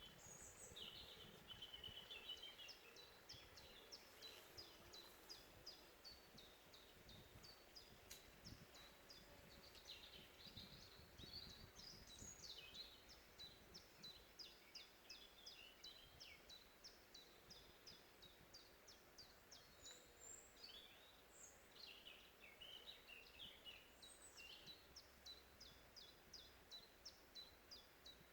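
Birdsong: one bird repeats a short high chirp at about two to three a second while others sing brief warbling phrases.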